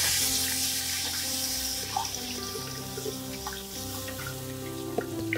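Thick coconut milk pouring in a stream from a woven basket strainer into a hot clay cooking pot, splashing onto the fried spices; loudest at the start, then fading. Soft background music plays underneath.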